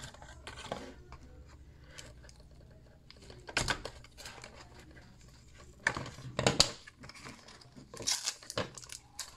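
Packaging being torn open by hand: tape and wrapping ripping and crinkling in three short noisy spells, the loudest about six seconds in.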